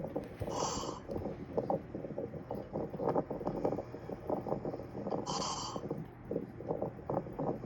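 A person snoring loudly with a fast, rattling snore, broken by two short hissing breaths about a second in and about five seconds in.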